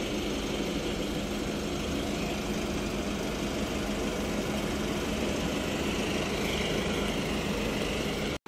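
Engine running steadily at idle, a constant low hum, with a faint hiss swelling in the upper range about six and a half seconds in.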